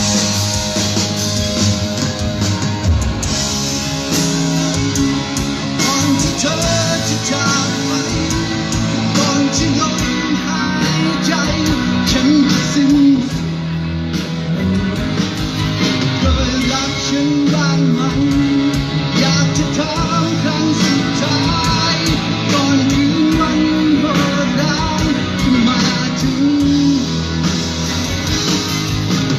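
Rock music with guitar and a singing voice, played loud through a concert PA sound system.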